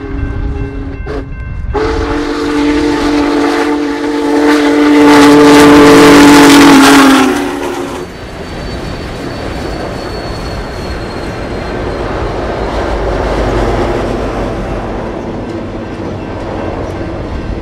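Union Pacific Big Boy 4014's multi-chime steam whistle: a short blast ending about a second in, then a long blast from about two seconds in that grows louder and sags in pitch as it closes about eight seconds in. After that, the passenger cars roll past with steady wheel-on-rail noise.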